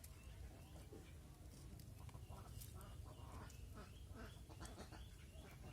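Faint bird calls: short high chirps repeating a few times a second, then clusters of short sharp calls in the second half, over a low steady rumble.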